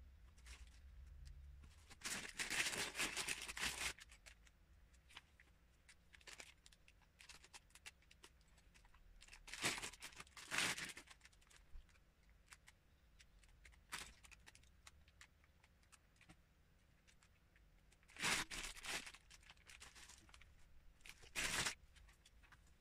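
Plastic LEGO poly bags crinkling and paper instruction booklets rustling as they are handled. The sound comes in four soft bursts: a longer one about two seconds in, then around ten seconds, and two close together near the end. Faint ticks and taps fall in between.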